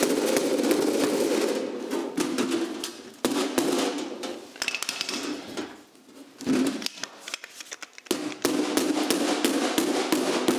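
Fast hammer blows on a sheet-steel floor pan lying on concrete, stretching the metal to form a recessed pocket, the panel ringing under each run of blows. The hammering stops for a couple of seconds just past the middle, then resumes.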